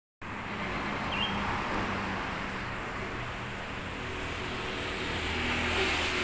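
Steady urban traffic noise with a low engine hum.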